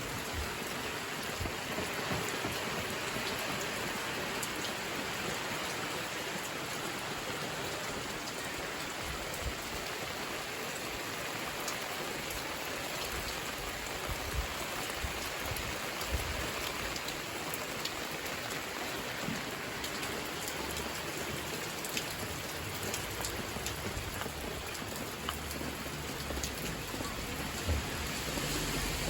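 Steady rain falling, a constant hiss with scattered sharp ticks of drops striking surfaces.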